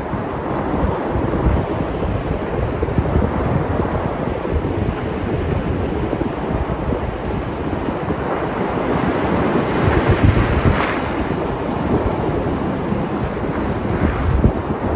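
Sea surf: waves breaking and washing up the shore in a continuous rush that swells to its loudest about ten to eleven seconds in and surges again near the end. Wind buffets the microphone underneath.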